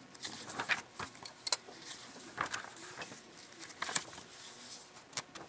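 Paper pages of a motherboard manual being leafed through: irregular soft rustles with a few sharper snaps.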